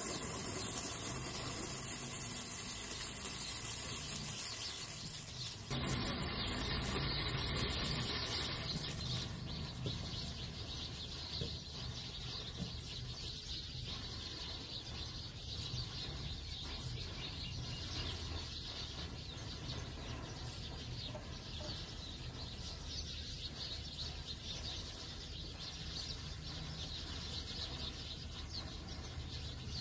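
Ground-fountain firecracker spraying sparks with a steady hiss, with a louder burst of hiss about six seconds in. Then a chain of standing matchsticks flaring one after another, a lower steady hiss with small crackles.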